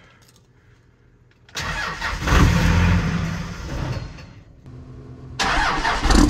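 2001 Dodge Ram's 5.9-litre inline-six Cummins turbo diesel cranked on the starter, catching about a second and a half in and dying away a couple of seconds later, then cranking and firing again near the end. It starts but won't keep running, which the owner suspects is from the tank being out of diesel.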